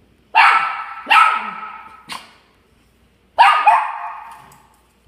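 Dog barking: about five sharp barks spaced irregularly, each ringing on briefly after it.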